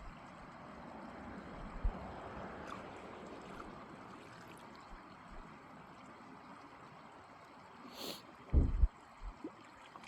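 Lake water lapping and trickling at the shore, a steady soft wash, with a short knock about two seconds in and a brief rustle and a couple of dull thumps near the end.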